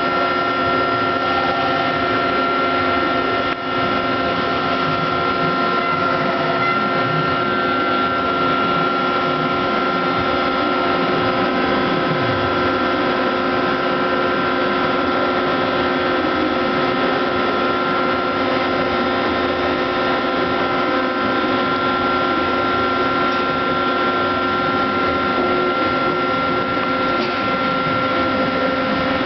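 Mori Seiki SL-3A CNC slant-bed lathe running, a steady mechanical whine made of several tones, with a low tone dropping in pitch about twelve seconds in.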